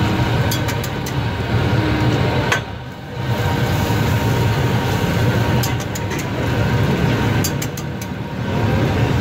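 Slotted metal spatula clinking and scraping on a flat steel griddle as frying egg-coated kabab patties are flipped, in small clusters of sharp taps, over a steady low rumble.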